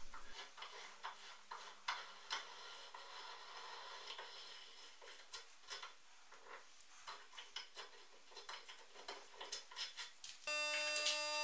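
Faint, irregular clicking and ticking of a hand tap in a T-handle tap wrench being turned to cut threads into a steel block. About a second before the end a steady buzzing hum starts.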